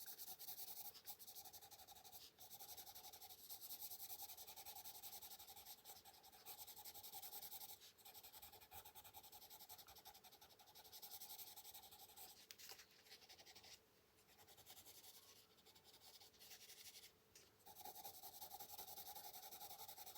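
Faint scratching of a coloured pencil rubbed back and forth on paper, blending a light blue layer, with a few brief pauses between strokes.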